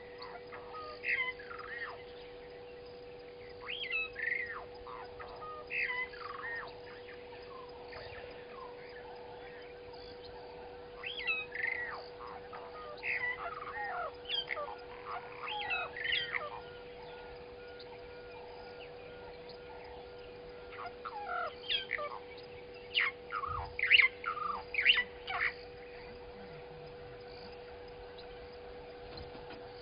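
Birds calling in scattered bursts of short, swooping chirps and squawks, in several clusters with pauses between them. A steady faint hum runs underneath.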